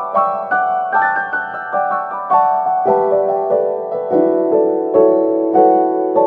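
Background piano music: a gentle melody of notes struck about twice a second.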